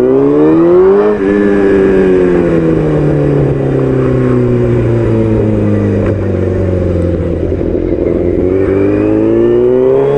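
Vehicle engine under way. It rises in pitch as it accelerates for about a second, eases off and falls slowly in pitch for several seconds, then picks up and rises again near the end.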